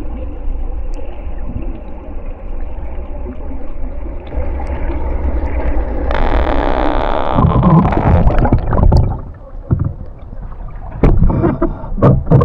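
Water heard through an underwater camera as a swimmer moves: a steady low rumble, then a rushing hiss of water about six seconds in, and sharp splashes in the last second or so as he nears the surface.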